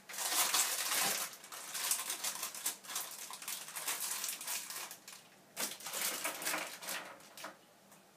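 Clear plastic bag of chocolate-covered caramel popcorn crinkling and rustling as it is handled and opened, with a short pause about five seconds in.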